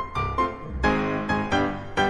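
Background music with a quick run of notes and struck chords.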